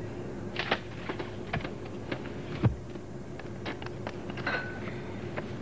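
Telephone keypad and handset being handled: a dozen or so irregular clicks and taps, the loudest about two and a half seconds in, over a faint steady hum.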